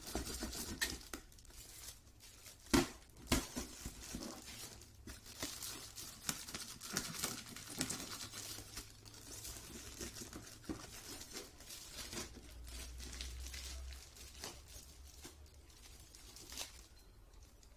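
Shiny gift wrap being crinkled and torn by hand to unwrap a box. It makes a steady crackling with irregular sharp snaps, and two louder rips about three seconds in.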